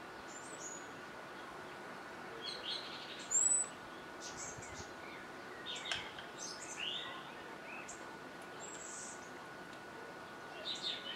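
Small songbirds giving scattered short chirps and thin whistles, the loudest a single high, falling whistle about three and a half seconds in. A faint steady high tone runs underneath.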